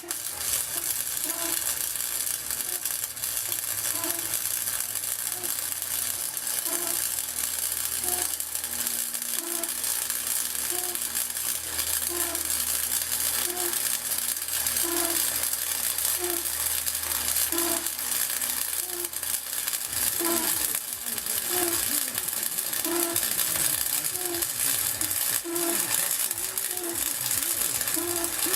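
Arc welder crackling steadily while laying weld on a steel swing arm, a dense sizzling hiss full of small pops. A soft, regular pulse about once a second runs under it.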